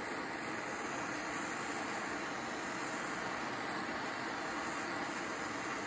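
Steady hiss of a handheld gas torch's flame heating a cast aluminum bracket for aluminum brazing. The flame is not bringing the piece up to its working temperature of 700 to 750 degrees.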